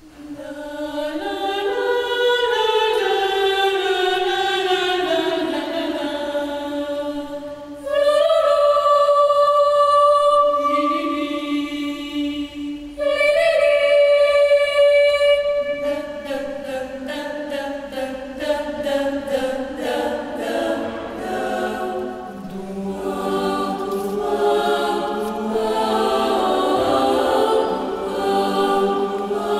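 Girls' choir singing a cappella, the voices entering together out of silence on long held chords. Two louder entries, about 8 and 13 seconds in, open on a sustained high note, and from about halfway the singing turns to a quicker rhythmic passage of short repeated notes.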